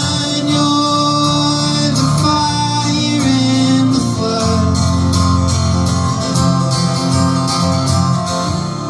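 Live acoustic guitar strumming with voices singing over it, in the closing bars of the song.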